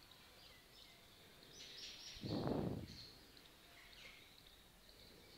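Faint chirping of small birds in the background, with one short, dull, louder noise a little after two seconds in.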